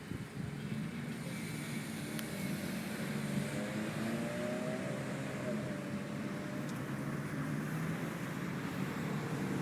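A vehicle engine running steadily, its low hum growing slightly louder toward the end.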